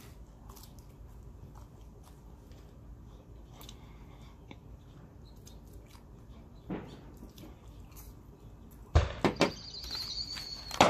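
Foil and paper sandwich wrapper being handled: a soft knock, then a few sharp knocks and crinkling in the last two seconds as the wrapped sandwich is picked up.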